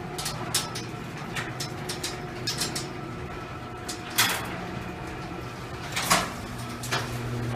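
Small electric motor running as it drives a garage door closed, a steady low hum with frequent clicking and rattling of the door mechanism and two louder knocks, about four and six seconds in.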